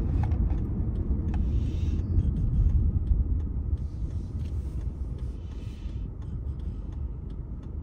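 Road noise from inside a moving car: a steady low rumble of engine and tyres, getting a little quieter from about three seconds in.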